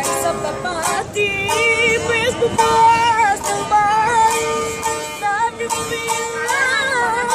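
A boy singing a Greek popular song in an ornamented, wavering style, accompanying himself on a strummed long-necked Greek lute of the bouzouki family.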